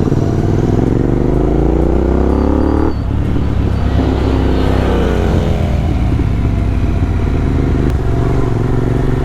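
Royal Enfield GT650's parallel-twin engine accelerating, rising in pitch, dropping at a gear change about three seconds in, then rising again.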